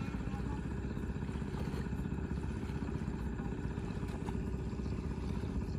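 A small engine running steadily with a fast, even low throb.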